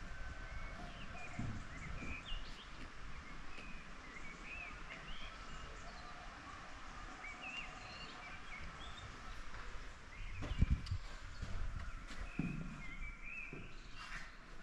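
Small birds chirping and twittering in many short calls, with a few low thumps.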